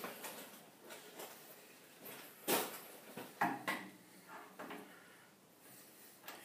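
A few light metallic clinks and knocks as a dial indicator and its stand are handled and set in place on a lathe, the loudest about two and a half seconds in.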